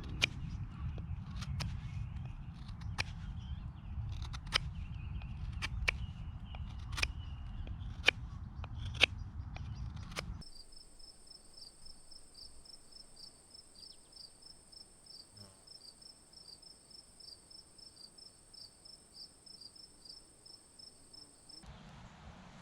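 Low rumble with sharp clicks about once a second for roughly ten seconds, then an abrupt change to a quiet outdoor ambience: a steady high-pitched trill with a fast-pulsing high note beneath it, the sound of insects singing.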